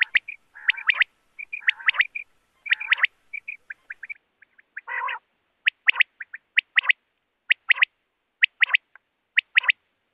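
Common quail (batair) calling: repeated groups of short, sharp high notes in twos and threes, coming about once a second in the second half, with several longer, lower, harsher calls mixed in during the first half.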